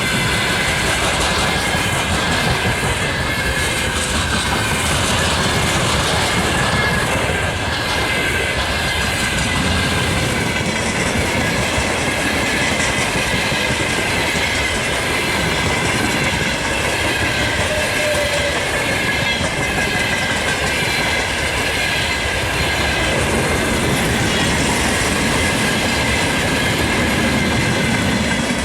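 Freight train rolling past at close range, its wagon wheels clattering steadily over the rail joints, with a high steady ringing from the wheels on the rails.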